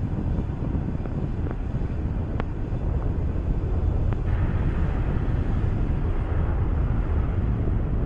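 Falcon 9 first stage's nine Merlin 1D engines heard in ascent as a steady low rumble with a few faint crackles. A brighter hiss joins about four seconds in.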